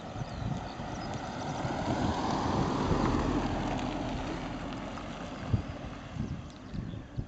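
A vehicle passing by: a broad rushing noise that swells to its loudest about three seconds in, then fades away over the next few seconds.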